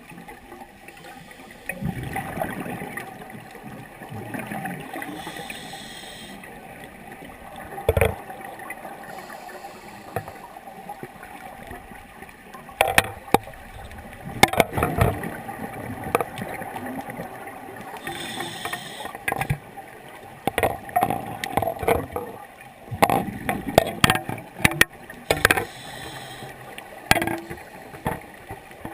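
Scuba diver breathing through a regulator underwater. A short hissing inhale comes every several seconds, and each is followed by a burst of exhaled bubbles gurgling and crackling with sharp clicks.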